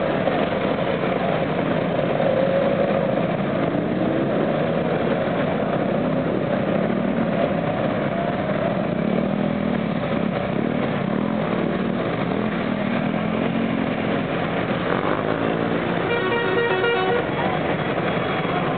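Several Vespa and Lambretta scooters running and revving together as a group rides off, their engine notes overlapping and wavering in pitch. A horn toots once for about a second near the end.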